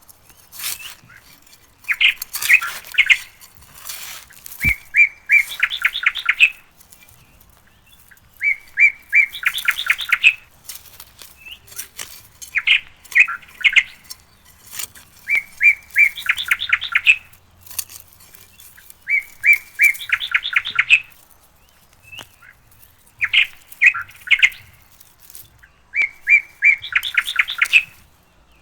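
A bird singing the same short phrase over and over, about every three and a half seconds: a few separate notes, then a quick run of high chirps.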